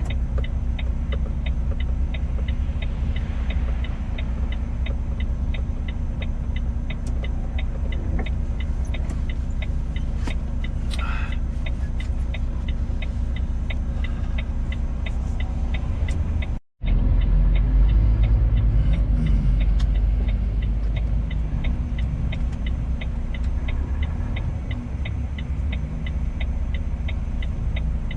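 Truck's diesel engine running, heard from inside the cab, with a steady, regular ticking over the drone. About seventeen seconds in the sound cuts out for an instant. After that the engine is louder for a few seconds and its pitch shifts, as it pulls under changing load.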